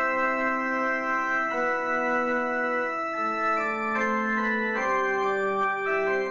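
Roland EP-90 digital keyboard playing its organ voice: a slow run of held organ chords that change every second or so.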